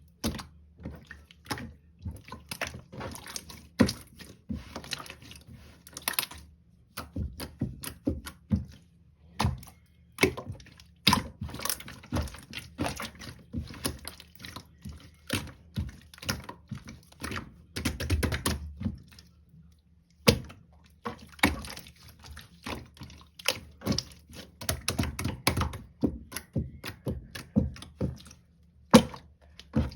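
Close-up wet clicking, tapping and squishing in quick, irregular runs, broken by a few short pauses.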